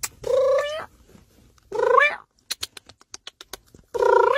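Three drawn-out meows, about two seconds apart, each bending in pitch, with a quick run of light clicks between the second and the third.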